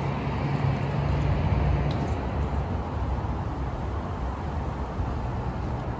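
Steady low outdoor rumble with no clear single source, with one faint click about two seconds in.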